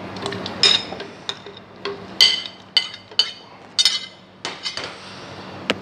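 About ten irregular sharp clinks and taps, some with a short ring, from a ceramic plate knocking against a blender jar as diced mango is tipped and scraped into it.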